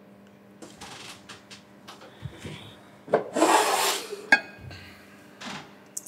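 Water running from a tap into a glass for about a second, then the glass set down on the bar counter with a short clink, amid small handling noises.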